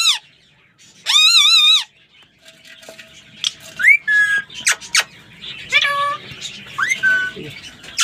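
Parrots calling: a long, wavering, harsh call about a second in, then a run of short chirps, rising whistles and squawks.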